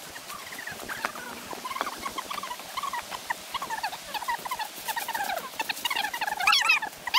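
Many short, squeaky chirps and twittering calls from birds, getting busier and higher near the end. Under them is a steady faint crunch of footsteps in dry fallen leaves.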